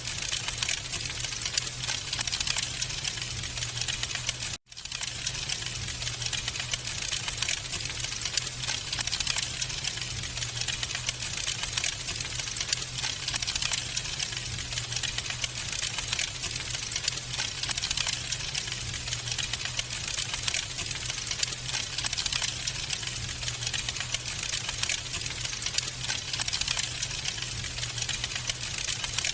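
Wood fire crackling in a fireplace: a dense run of small snaps and pops over a low steady rumble, with a split-second break about four and a half seconds in.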